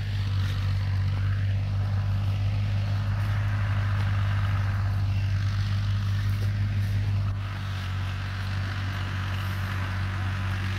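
A steady low engine hum runs throughout, dropping a little in level about seven seconds in.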